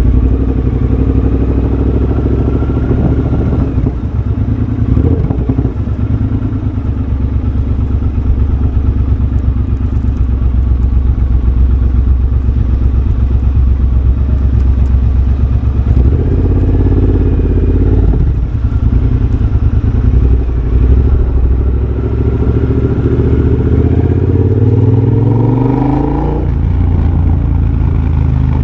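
A 2023 Triumph Bobber's 1200 cc parallel-twin running through a de-catted X-pipe and a Motone shorty exhaust while riding, with the revs rising and falling as the throttle changes. Near the end the engine pitch climbs steadily for a few seconds under acceleration, then drops suddenly.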